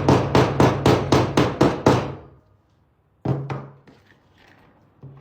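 A hammer tapping a metal drywall anchor into drywall: a quick run of about ten sharp taps, about five a second, then a pause and one more single knock about three seconds in.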